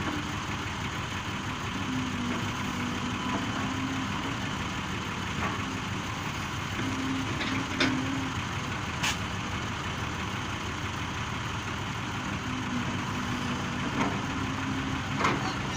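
Heavy diesel excavator engine running steadily, its note strengthening briefly a few times, with a few sharp knocks.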